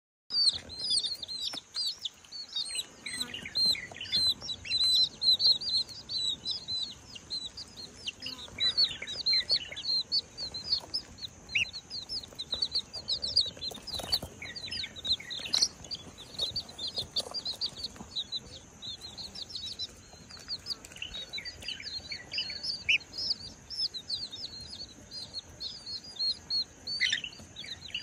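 Baby chicks peeping continuously, a dense stream of short high chirps, with a brief flutter of wings about halfway through.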